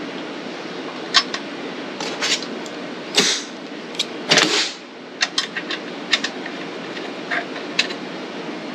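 Small metal clicks and clinks of screws and a socket extension being picked up and handled on a workbench, with two longer scraping sounds about three and four and a half seconds in, over a steady background noise.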